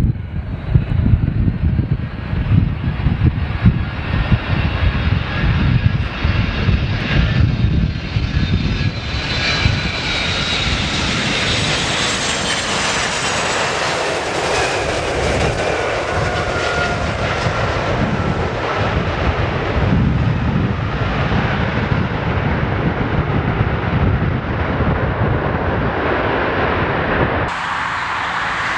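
Boeing 747-200 freighter's four jet engines on landing approach: a gusty low rumble that grows into a loud roar with high whining tones sliding down in pitch as the jet passes close by at touchdown, then a steady roar. Near the end it cuts abruptly to another airliner's engine noise.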